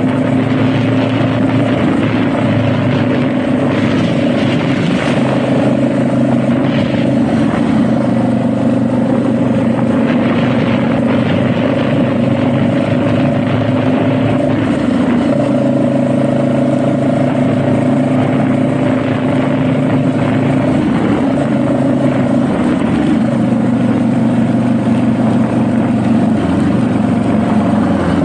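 Honda Rebel motorcycle engine running steadily under way, its pitch dipping and stepping a few times as engine speed changes, over a constant rush of wind and road noise.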